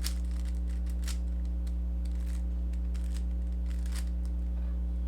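Rubik's cube being turned through an algorithm: scattered quick, faint clicks of the layers snapping round, over a steady electrical hum.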